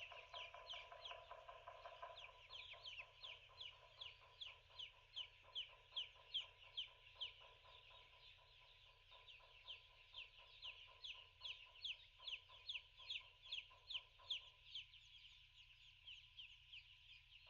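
A flock of broiler chicks peeping: a dense, continuous run of short, high, downward-sliding peeps, several a second, over a faint steady tone.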